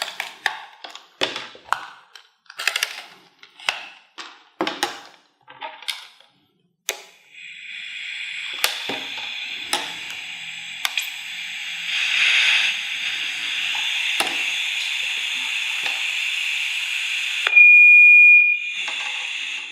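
Vintage Morse code transceiver: a run of short crackles, then a steady high static hiss with scattered clicks, and near the end a single high beep lasting about a second, the loudest sound.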